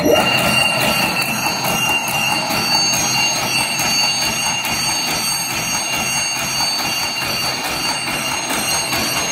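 Double-strand reverse-twist barbed wire making machine switched on at its start button, starting abruptly and then running with a steady, dense mechanical clatter of gears and chains. A steady high whine sits over the clatter.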